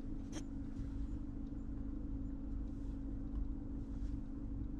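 Electric car on the move: a steady low road and tyre rumble under a constant hum, with a single sharp click about a third of a second in.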